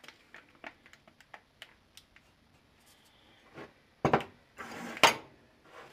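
Small kitchen handling noises on a countertop: light scattered clicks and taps, then a few sharper knocks with a short rustle a little past halfway, as chocolate chips are put on top of a glazed mug cake.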